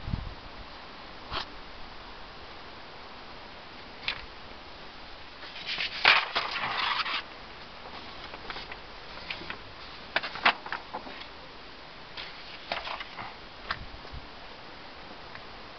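Camera handling noise: scattered clicks and a longer rustle about six seconds in, as fingers move over the handheld camera.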